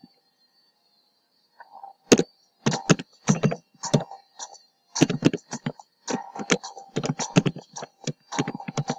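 Computer keyboard typing in quick runs of keystrokes, starting about a second and a half in: details being typed into a web form. A faint steady tone runs underneath.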